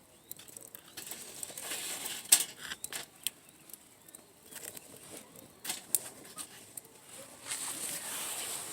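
Wood campfire crackling, with irregular sharp pops and snaps over a rushing hiss that swells twice.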